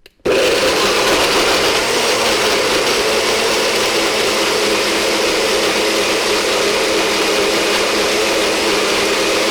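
Electric blender switched on abruptly, then running steadily without change in speed.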